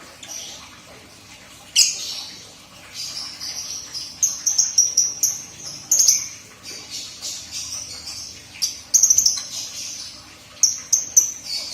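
Lovebird chatter: rapid, shrill chirps and squeaks coming in quick bursts.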